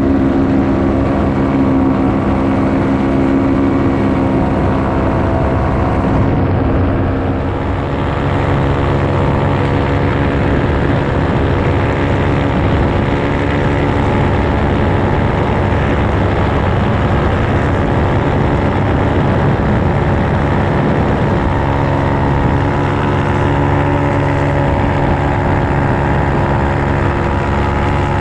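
Paramotor engine and propeller running steadily in flight, heard from the pilot's harness. The engine note shifts slightly about seven seconds in and again about twenty-one seconds in.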